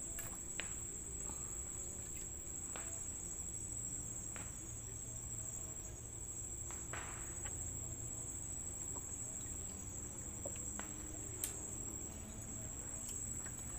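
Steady high-pitched chorus of insects, typical of crickets, with a few faint scattered clicks.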